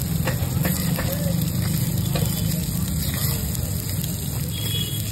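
Eggs frying in small cast-iron pans over charcoal, sizzling steadily, with a metal spoon clicking and scraping against the pan several times. A steady low hum runs underneath.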